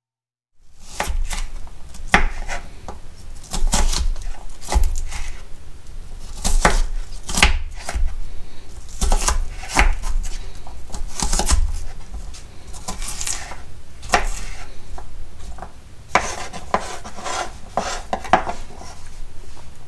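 Kitchen knife dicing a yellow onion on a wooden board: a run of irregular chopping strikes, each a sharp knock of the blade through the onion onto the wood. It starts about half a second in.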